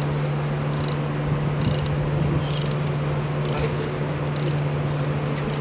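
Ratchet wrench clicking in short runs, about one run a second, as bolts on top of a gasoline engine are turned, over a steady low hum.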